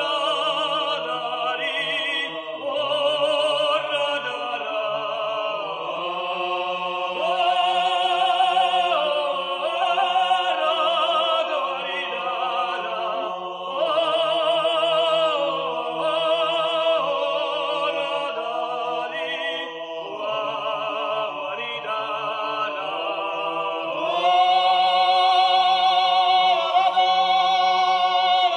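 Abkhazian folk song: a solo voice singing long held notes with a wide vibrato, over a low steady drone.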